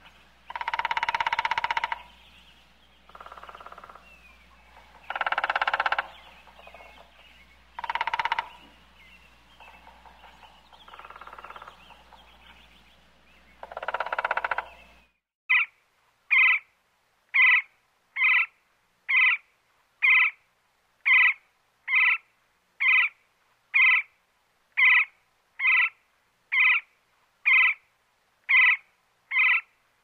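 Woodpecker knocking on wood in six rapid rolls of about a second each, some louder and some fainter. About halfway through the knocking stops and a woodpecker calls instead: short, sharp chirps repeated evenly, about one a second.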